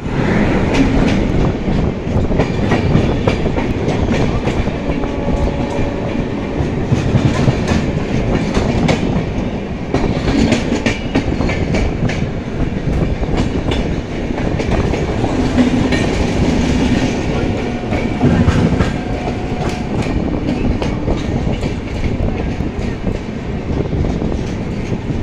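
Passenger train coach running at speed: a steady rumble of wheels on rail with repeated clickety-clack over rail joints, as another train passes close on the adjacent track.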